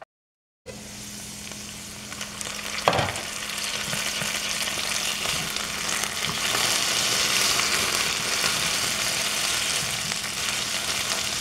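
Potato pieces sizzling as they fry in coconut oil in a skillet, being turned with a metal spatula; the sizzle grows louder after a few seconds. A single knock about three seconds in.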